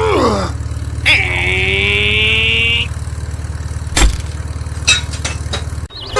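A vehicle engine idling with a steady low hum, which cuts off sharply near the end. A high, whistle-like tone sounds for about two seconds near the start, and a few sharp knocks come in the last seconds.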